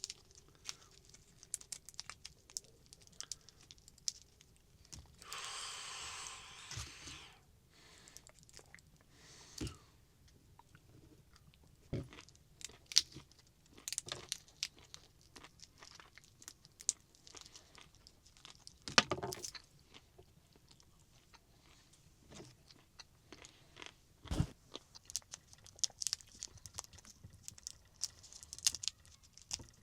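A person eating, chewing crunchy food close to the microphone, with scattered small clicks and knocks. About five seconds in, a steady rushing noise lasts about two seconds.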